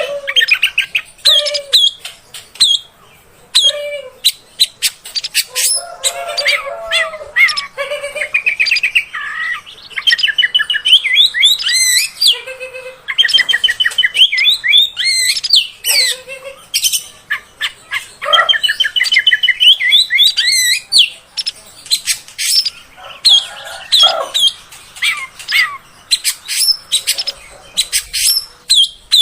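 Oriental magpie-robin (kacer) singing a long, varied song of quick whistles, trills and sharp chips, with short breaks between phrases.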